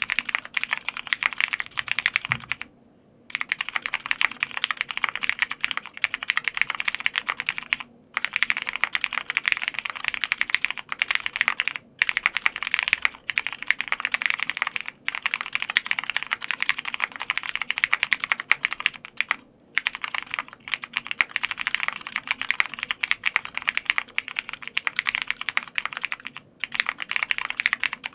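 Fast, continuous typing on a Bubble75 mechanical keyboard with a polycarbonate plate and lubed, filmed Cherry MX Brown tactile switches under dye-sub PBT keycaps, broken by a few brief pauses.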